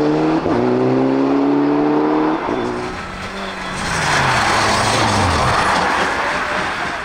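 Rally car engine pulling hard, its pitch climbing after a quick gear change about half a second in, then lifting off about two and a half seconds in and falling away in pitch. From about four seconds a second rally car goes past with a loud, even rushing noise that fades near the end.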